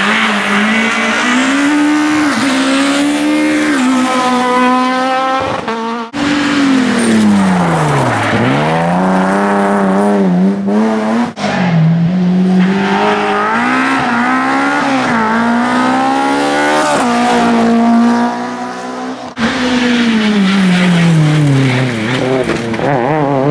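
Rally cars taking a bend on a tarmac stage one after another, in four short clips cut together. Their engines rev high, then drop away as they brake and change gear, and rise again as they accelerate out.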